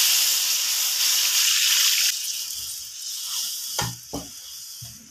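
Thick first-press coconut milk being poured into a wok of garlic and onion sautéing in hot oil. The pan hisses and sizzles loudly, and the sizzle dies down after about two seconds. Two light knocks come near the end.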